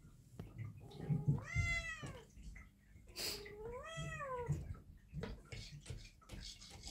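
Young Persian-Ragdoll cross cat meowing twice, each meow rising and then falling in pitch, with a short sharp click between them. The kitten is hungry, kept from food overnight before surgery.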